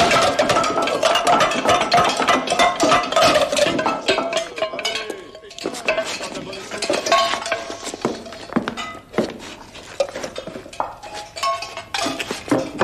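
Aluminium mess bowls and spoons clattering and clinking as a crowd of men jostles, with a hubbub of men's voices; busiest and loudest in the first few seconds.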